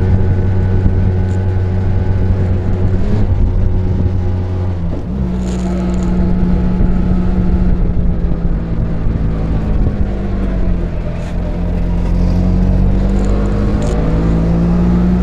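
Auto-rickshaw engine running under way, heard from on board, with a steady hum whose pitch drops about three and five seconds in and climbs again near the end as the vehicle changes speed.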